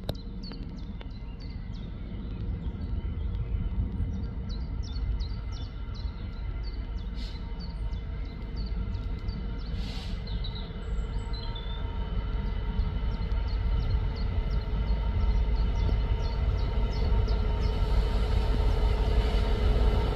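A Class 66 diesel-electric locomotive hauling a train of hopper wagons approaches. Its two-stroke diesel engine gives a steady droning hum over a low rumble, and it grows steadily louder as the train nears.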